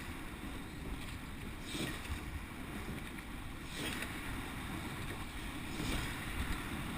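Wind buffeting the microphone and water rushing past a surf boat being rowed. Two faint swishes come about two seconds apart.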